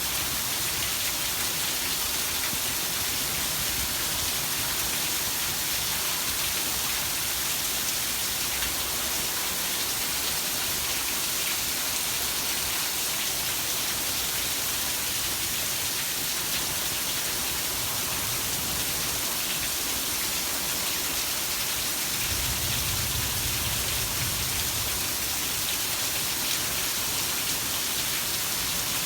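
Heavy rain falling steadily, an even hiss of drops on surfaces, with a brief low rumble about three-quarters of the way in.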